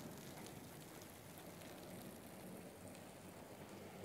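Rain falling steadily on a wet paved street: a faint, even hiss of drops and splashes.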